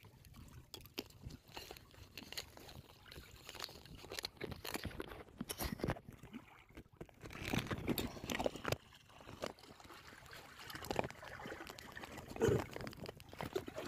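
Shallow seawater sloshing and splashing against the side of a wooden outrigger boat as a swimmer moves alongside it, with many small irregular splashes and knocks. The splashing gets louder toward the end as the swimmer goes face-down into the water.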